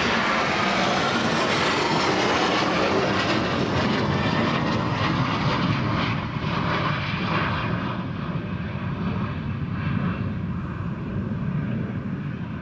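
Military jet flying overhead, a loud engine roar whose pitch sweeps downward in the first few seconds as it passes, then slowly fades as it flies away.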